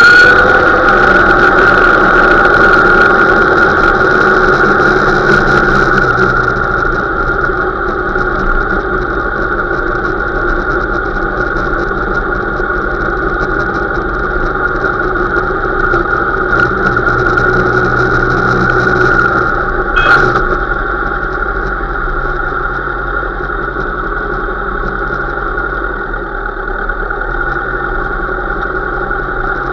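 Motorcycle engine running steadily at low revs while riding slowly, heard from the handlebars. A short sharp click about twenty seconds in.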